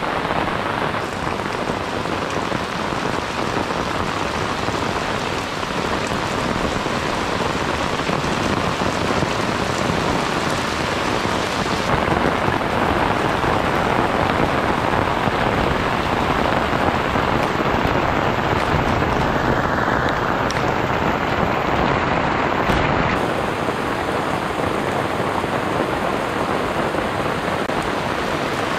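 Steady rain falling on clay-tile roofs and banana leaves, an even hiss of rain. About two-thirds of the way through it drops a little in level and changes tone slightly.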